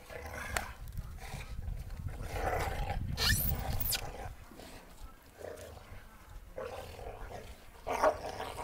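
A Rhodesian ridgeback and a redbone coonhound play-fighting, giving repeated bursts of rough play growling. The loudest burst comes about three seconds in, and there is another short loud one near the end.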